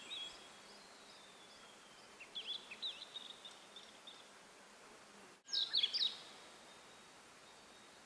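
Songbird singing in short phrases of quick, high whistled notes, once about two seconds in and again, louder, about five and a half seconds in. The bird is taken for a blue-and-white flycatcher.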